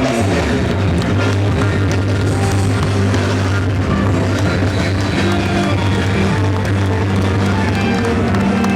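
Live soul-funk band playing an instrumental groove: drum kit with cymbals, a steady bass line and guitar.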